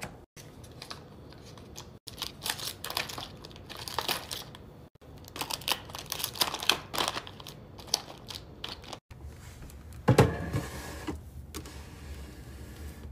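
Plastic snack wrappers crinkling and rustling in short irregular bursts as packets are handled and slotted into a plastic storage bin. A single louder knock comes about ten seconds in.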